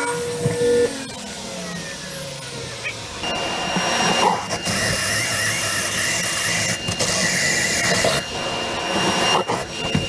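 Table saw motor running, then switched off and spinning down, its pitch falling over about two seconds. About three seconds in, a cordless drill starts boring a 1¼-inch hole through a padauk-and-maple brick panel. It runs as a steady whine, easing off briefly a few times.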